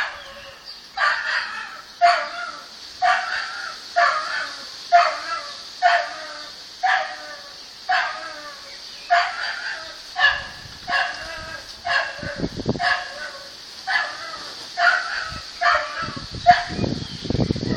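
Dog shut in on a balcony whining, giving short sharp cries over and over at about one a second. A low rumble comes in over the last few seconds.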